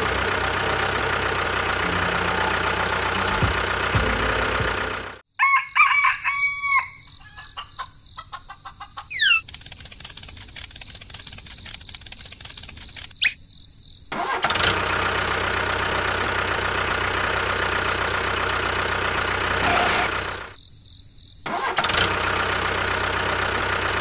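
Tractor engine running steadily, broken off about five seconds in by a rooster crowing. A quieter stretch with a few clicks follows, then the engine runs again from about fourteen seconds, dipping briefly near the end.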